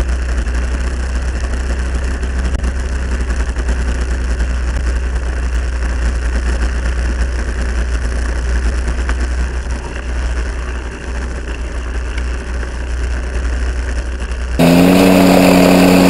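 Gyroplane engine running steadily on the ground, heard as a low rumble. Near the end the engine note becomes louder and clearer, a steady hum that rises slightly in pitch.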